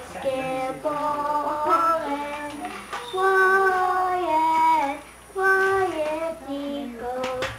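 Children singing a song in long held notes, with a short break between phrases about five seconds in.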